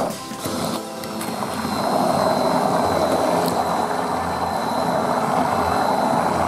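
Hand-held immersion blender running steadily, puréeing a thick cauliflower-and-egg batter: a continuous motor hum with a thin high whine, growing louder over the first second or two as the blade works through the mixture.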